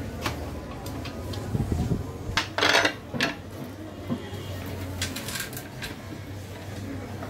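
Metal parts and hand tools clinking and clattering during hand work on an outboard motor, with one louder, longer clatter about two and a half seconds in. A low steady hum runs underneath.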